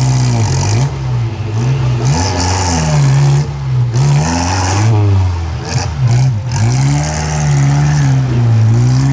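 Engines of small off-road 4x4s straining up a muddy slope, revving up and dropping back again and again.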